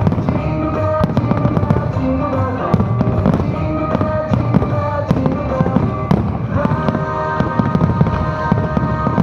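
Fireworks bursting in quick succession, many sharp bangs and crackles, over the music played with the fireworks show.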